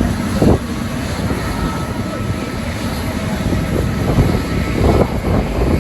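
Jet engines of an Airbus A321neo (Pratt & Whitney PW1100G geared turbofans) running with a steady rushing noise and a faint whine, with wind buffeting the microphone.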